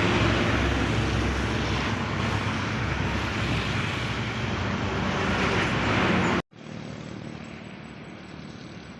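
Engine and tyre noise of a big intercity bus passing close by, a steady low hum under a broad rush of road noise. About six and a half seconds in, the sound cuts off abruptly and gives way to quieter, duller roadside traffic noise.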